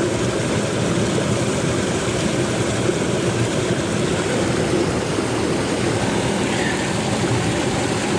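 Steady, deep rushing of a small mountain brook running down a granite cascade.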